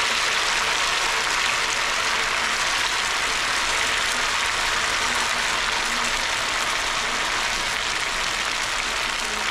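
Batter-coated potato pieces sizzling steadily in hot deep-frying oil.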